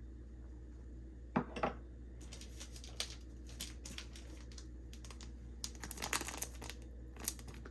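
Light clicks and crinkling from handling seasoning containers and a plastic spice packet, with two sharper clicks early and a busier run of crinkles near the end, over a steady low hum.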